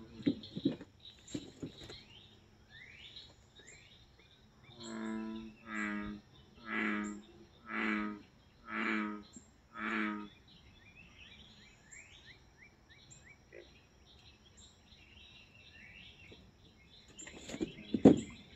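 Small birds chirping, with a loud animal call repeated six times, about once a second, in the middle. A few sharp footsteps near the end.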